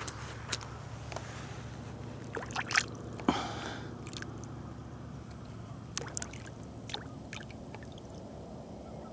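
A hand dipping into shallow lake water: small splashes and drips, the loudest about three seconds in, over a steady low hum.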